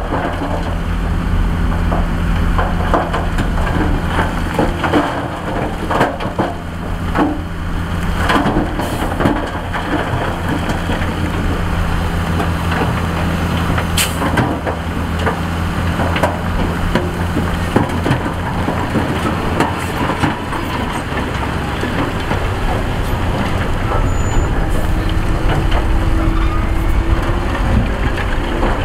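Heavy diesel engine of a dump truck running while big rocks scrape, knock and clatter as they tip out of the raised bed. The steady engine note changes about twenty seconds in.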